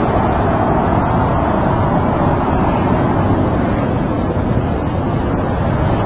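Steady snowstorm wind: a constant rush with a low rumble under it and no breaks.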